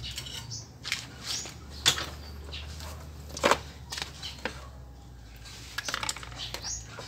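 Irregular clicks, knocks and rustles from handling motorcycle wiring and test leads, over a low steady hum.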